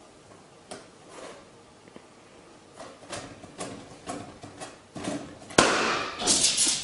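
Soft scattered taps and rustles, then about two-thirds of the way in a sudden loud bang like a rubber balloon popping, followed by about a second of loud noisy clatter.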